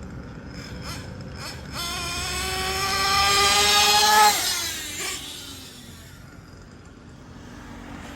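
Kyosho Inferno Neo ST 3.0 nitro RC truggy's small glow engine screaming at high revs as the truck approaches, its pitch climbing, then dropping suddenly about four seconds in as it passes and fades off.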